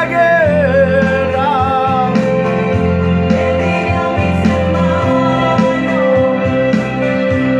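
Christian song: a singing voice over an instrumental backing with a steady bass line.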